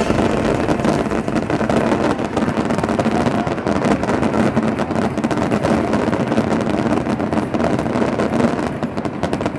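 Fireworks barrage: a dense, continuous rumble of bursts with rapid crackling.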